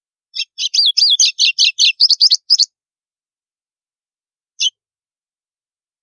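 White-throated seedeater (golinho) singing its 'estalo' song: a quick run of about a dozen high, clipped notes over about two seconds, then a single note near the end.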